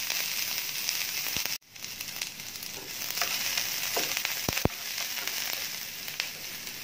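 Chopped onions sizzling in hot mustard oil in a nonstick frying pan as they are stirred with a wooden spatula, with a few light knocks of the spatula near the middle. The sizzle breaks off for a moment about one and a half seconds in.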